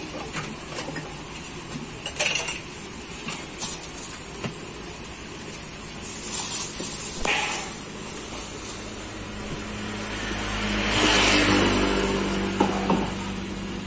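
Light clicks and rustling of plastic and plates being handled during food preparation. Then a motor vehicle passes by, its engine hum and road noise building from about nine seconds in, peaking around eleven seconds, and easing off near the end.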